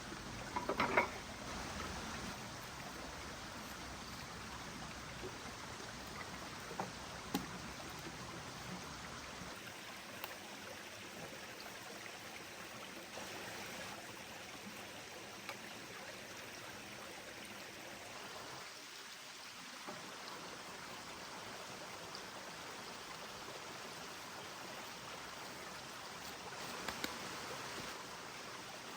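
Steady rushing noise like running water. A short cluster of knocks comes about a second in, and a few single clicks are scattered through it.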